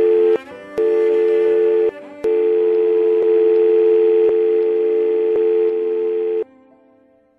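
Telephone dial tone heard from the handset: a steady two-note hum, broken twice in the first two seconds, then held for about four seconds before it cuts off.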